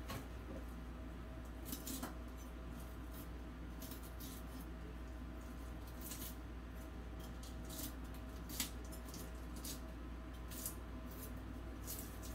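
A knife scraping and working over a fish in the sink, making irregular short scratchy strokes, with a steady low hum underneath.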